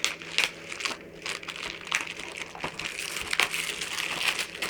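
Thin plastic shrink-wrap being peeled off a DVD case and crumpled in the hands, an irregular crinkling with sharp crackles.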